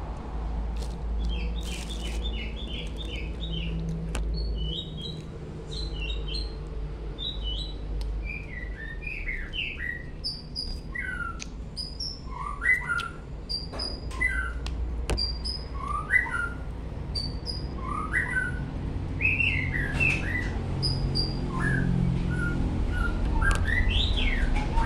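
Small birds chirping in quick, short, repeated calls of varying pitch, over a steady low rumble, with a few sharp clicks.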